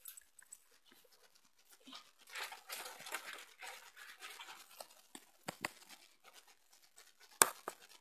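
Rustling and scattered light clicks from hands handling the toy and its packaging close to the microphone, with a louder sharp knock near the end.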